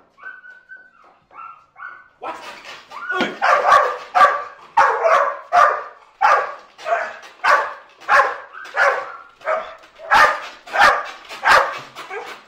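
Protection-training dog whining briefly, then barking repeatedly at a decoy in a bite suit, about two barks a second.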